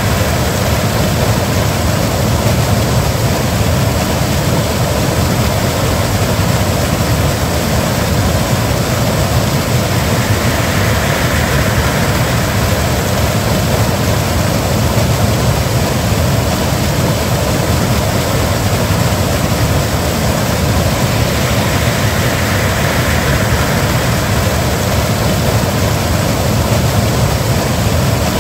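A small river waterfall: water pouring over rocks in a loud, steady rush.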